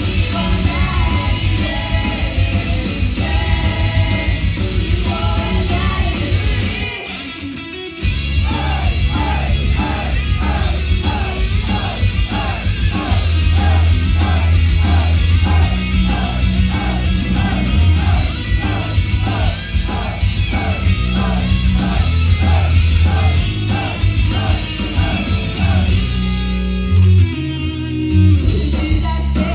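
Live heavy rock song performed by an idol group, with singing over loud guitar and drums. The music drops out briefly about seven seconds in, then comes back with a driving, evenly repeating heavy section.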